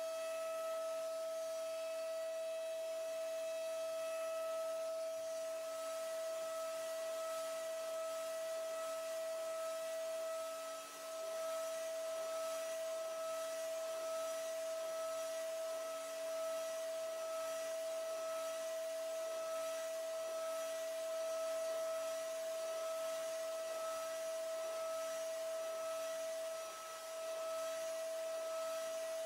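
CNC milling machine's high-speed spindle running with a small end mill cutting a metal part: a steady high whine with a faint hiss, briefly dipping twice.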